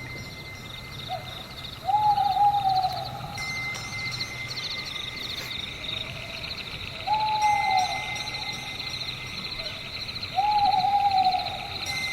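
Owl hooting three times, each call a short lead note followed by a longer hoot that rises and falls in pitch, over a steady chorus of crickets chirping in fast pulses.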